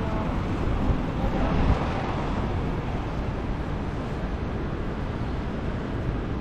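Steady street noise of passing road traffic, with a brief swell about a second and a half in.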